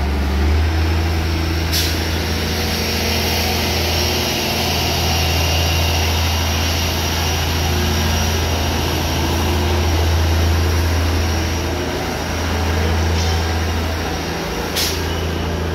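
A heavy engine running steadily: a loud, low drone with a faint high whine above it. Two sharp clicks come about two seconds in and near the end.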